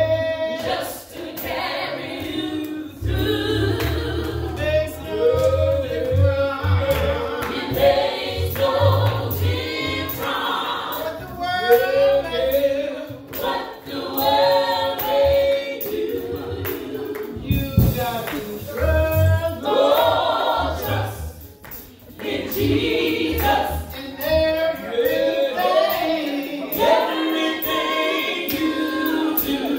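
A small group of women singing a gospel song together, in continuous phrases with a few brief breaks.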